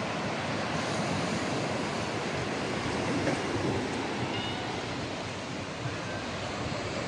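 Steady wash of small waves breaking on a sandy beach, mixed with wind.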